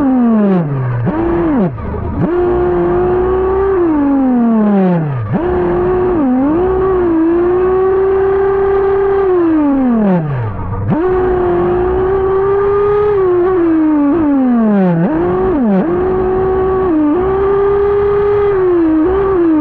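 Two-stroke nitro engine of a Losi RC buggy running at high revs, heard up close. Several times the pitch drops sharply as the throttle is let off, then climbs straight back to a high, steady whine. The engine is still on rich break-in tuning and has barely been leaned out.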